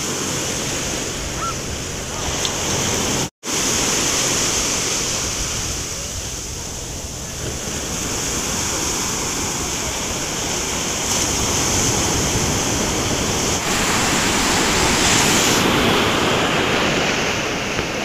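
Sea surf on a sandy beach: small waves breaking and foam washing over the sand in a continuous rushing noise. The sound cuts out for an instant about three seconds in.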